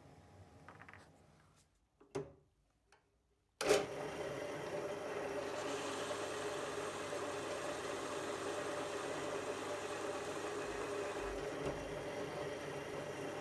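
Pillar drill starting suddenly about three and a half seconds in, then running steadily as the bit bores into wood. Before that there are faint handling sounds and a near-silent gap with a couple of small clicks.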